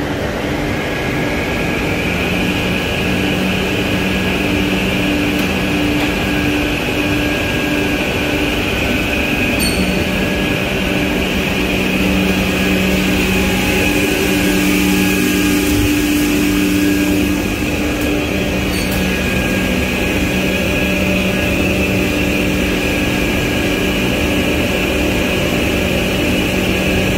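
MF-550 six-function automatic edge banding machine running on a test run, its motors giving a steady hum with a higher whine as a board panel is fed through.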